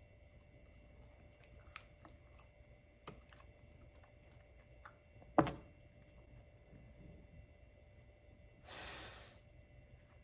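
Faint chewing of a flaky baked apple croissant, with soft scattered mouth clicks. About five seconds in comes one sharp tap, and near the end a short breath out.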